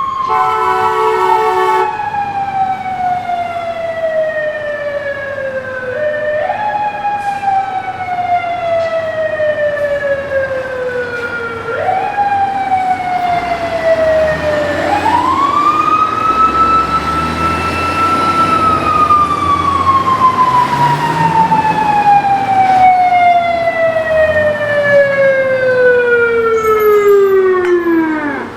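Fire truck siren sounding in long, slow falls in pitch, pushed back up twice, then winding up high about fifteen seconds in, holding briefly and sliding down for about ten seconds until it stops at the end. A horn blasts once, for about a second and a half, near the start.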